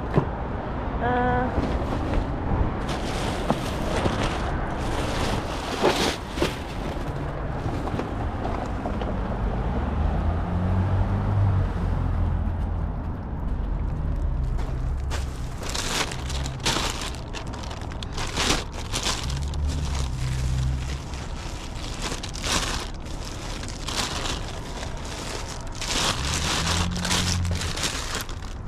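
Plastic shopping bags rustling and crinkling as they are handled, in many short crackling bursts that come thickest in the second half. Gusts of wind rumble on the microphone now and then. A brief stepped electronic tone sounds about a second in.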